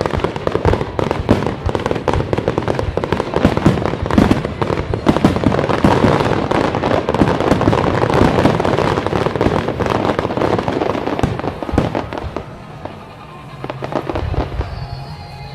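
Aerial fireworks in a dense barrage: many overlapping bangs and crackling bursts that thin out about twelve seconds in. A falling whistle comes near the end.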